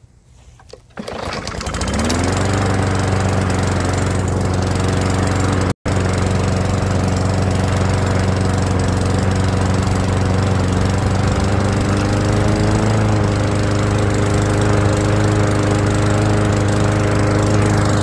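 Small engine of a Murray walk-behind lawn mower starts about a second in, runs up quickly and settles into a steady idle, picking up slightly a little past the middle. The idle has been raised by bending the throttle lever forward to tighten the governor spring.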